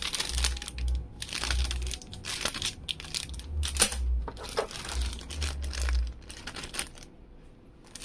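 Clear plastic accessory bags crinkling as they are handled, in irregular bursts with dull low thumps, growing quieter near the end.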